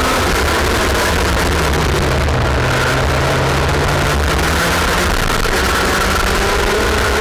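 IAME X30 125cc two-stroke kart engine heard onboard over wind rush, with other karts' engines close by. Its revs fall from about a second in, stay low, then climb again from about four seconds in as the kart comes off and back onto the throttle.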